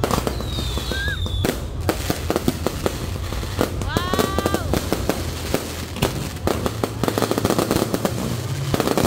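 Fireworks display: a rapid run of aerial shell bursts and bangs, with a falling whistle near the start and a rising whistle about four seconds in. It thickens into dense crackling near the end.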